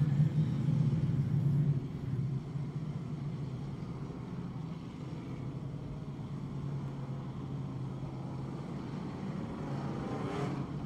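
Off-road super stock race trucks' engines running on the dirt track, a steady low drone. It is louder for the first two seconds and swells again near the end as a truck comes closer.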